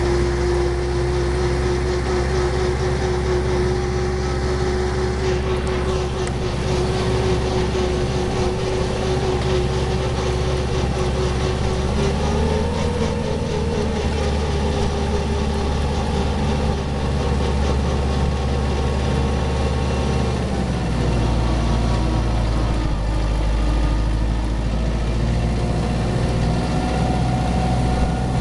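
Tractor engine running steadily while driving, its note shifting about twelve seconds in and dropping lower a little after twenty seconds.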